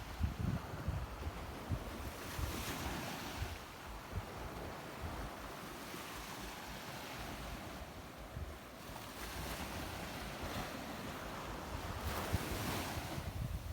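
Sea waves washing in, swelling in a hiss about three seconds in, again near nine seconds and once more near the end, with wind buffeting the microphone.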